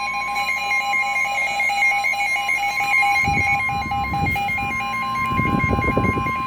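NOAA Weather Radio warning alarm: a loud, steady high tone of about 1050 Hz, with a faster on-off beeping pattern over it, signalling that a warning message follows. Low muffled noise sits under the tones from about three seconds in.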